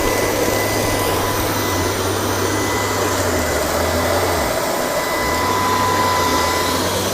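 LG R9 robot vacuum running on carpet: a steady whirring hiss with a thin high whine over it. Its low hum drops away briefly about four and a half seconds in, then comes back.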